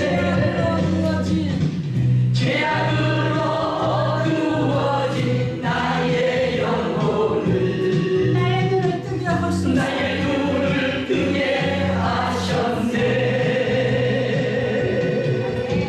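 Gospel song: choir-style singing over instrumental accompaniment.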